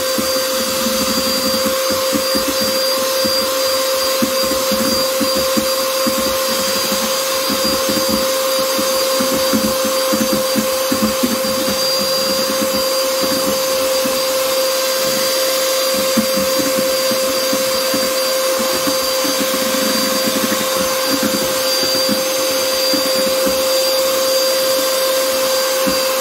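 Mandine electric hand mixer running steadily, its beaters whisking egg whites in a stainless steel bowl as hot sugar syrup goes in for an Italian meringue. The motor gives a steady whine throughout.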